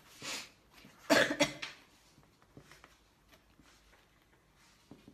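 A young woman coughing twice, about a second apart, the second the louder, then faint small scratches and ticks of a pen writing on paper.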